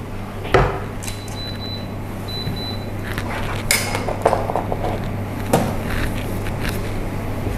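Wooden spatula knocking and scraping against a non-stick frying pan as a coconut-milk rendang sauce is stirred, with one sharp knock about half a second in and a few lighter knocks later, over a steady low hum.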